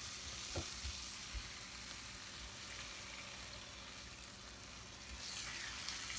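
Masala of onion, tomato and chili powder sizzling in oil in a pan, fried to the stage where the oil separates, with a spatula stirring and knocking softly against the pan in the first second or so. Near the end the sizzle swells as water is poured into the hot pan.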